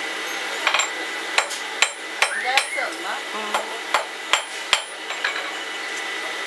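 Blacksmith's hand hammer striking metal on an anvil: about a dozen sharp, irregularly spaced blows that stop about five seconds in, over a steady background hum.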